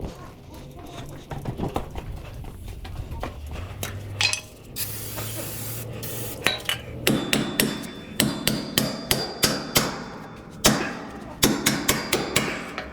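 Hammer blows on metal, at first a few scattered knocks and then a rapid series of about three or four blows a second, with a faint metallic ring. One blow is louder than the rest. A short hiss comes about five seconds in.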